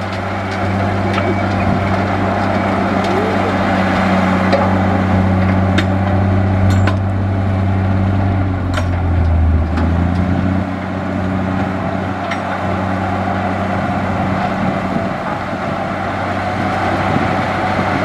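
Heavy diesel engine of earthmoving machinery running steadily, its note dipping and shifting about ten seconds in, with a few sharp knocks over it.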